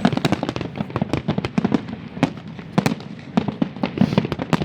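Fireworks and firecrackers going off all around, a dense, continuous crackle of overlapping bangs and pops, several a second.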